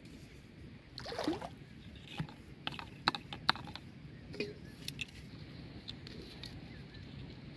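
Plastic bottle traps being handled: scattered sharp clicks and knocks of plastic, one with a short ring as a bottle meets a steel bowl about four and a half seconds in, and a brief swish about a second in.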